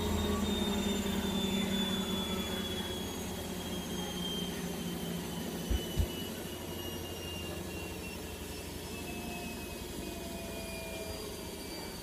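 Indesit front-loading washing machine winding down from its spin, the motor and drum whine falling slowly in pitch and fading. Two short low thumps come about halfway through.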